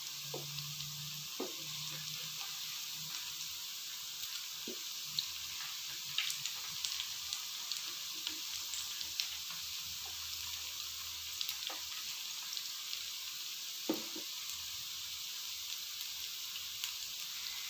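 Oil sizzling steadily as mini hash brown patties shallow-fry in a pan. A few short clicks come from the tongs and slotted spatula touching the pan as the patties are turned.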